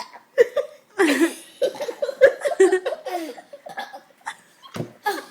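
Laughter in many short, rough bursts, with a cough-like outburst among them.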